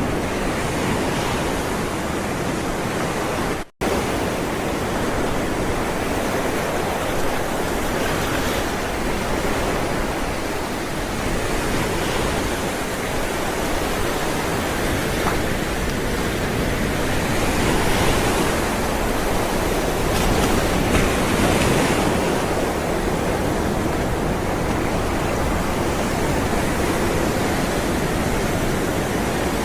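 Ocean waves rolling onto a shore: a continuous rush of water whose hiss swells louder every few seconds as waves break and wash in. A split-second gap in the sound comes about four seconds in.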